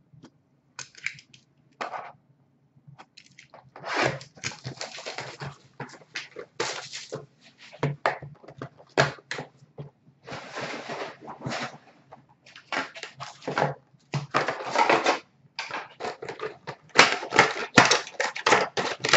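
A cardboard box of 2013-14 Panini Titanium hockey cards being torn open and handled by hand: irregular bursts of cardboard tearing and rustling, sparse at first and denser in the second half.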